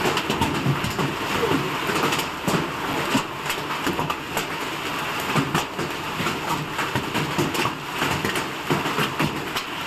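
Hailstorm: rain and hail falling, a steady hiss with many irregular sharp ticks of hailstones striking.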